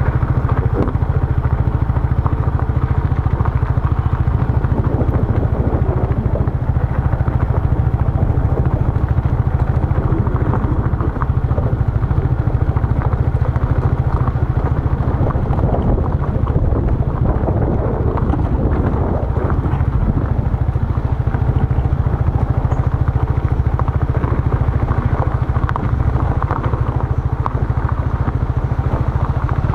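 A motorbike running steadily on the move along a road, with a constant low rumble that never lets up.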